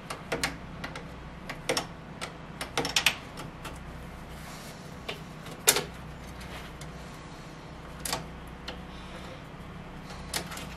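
Scattered clicks and light metal knocks of air suspension lines and fittings being handled and worked loose on a Mercedes W109 front subframe, over a steady low hum. The loudest knock comes a little past halfway.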